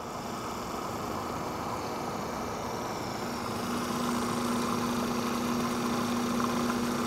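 Food processor motor running steadily, blending garlic, lemon juice and oil into a thickening toum emulsion. About three seconds in, a steady hum comes in and the sound gets a little louder.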